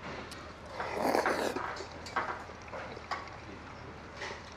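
A person eating hand-torn sujebi dough with chopsticks: a loud slurp about a second in, then chewing and a few light clicks.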